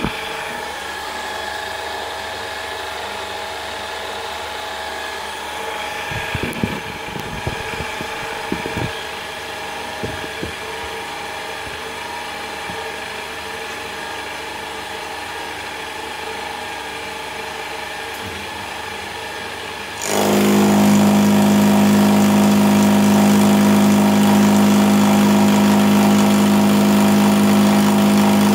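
Milling machine spindle running a homemade two-insert carbide cutter against cold-rolled steel: a steady machine hum with tones and a few sharp clicks. About two-thirds of the way through it jumps suddenly into a much louder steady drone with a strong low tone as the cutter takes a heavy cut in the steel.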